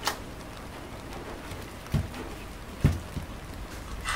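Model excavator arm parts, 3D-printed plastic with aluminium plates, handled on a work mat: a light click, then two dull thumps a little under a second apart, the second the louder, over a steady faint hiss.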